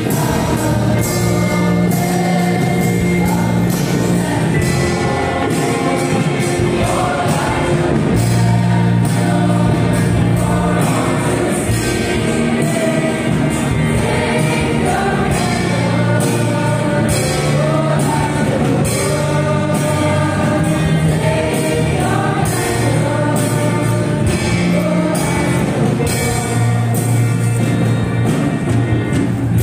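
A choir of young voices singing a hymn through loudspeakers, with instrumental accompaniment keeping a steady beat under held low notes.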